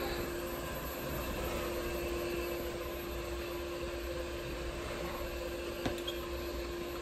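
Steady mechanical hum of running machinery, one even tone under a noisy haze, with a single sharp click about six seconds in.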